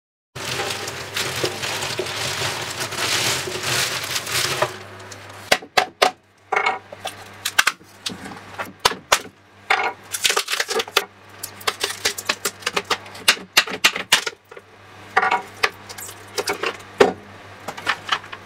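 A plastic casting mould being pried and peeled off a cured epoxy-resin and wood blank: a rough rasping noise for about the first four seconds, then a run of sharp cracks, clicks and crinkles as the plastic walls come away.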